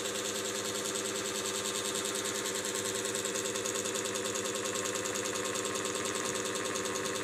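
A small machine running with a steady hum and a fast, even pulsing.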